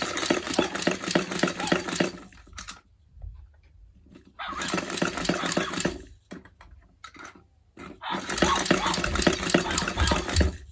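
Battery-powered robot dog toy working in three bursts of about two seconds each, a dense rattling buzz from its motor and speaker as it lowers its head to the bowl and eats a toy bone.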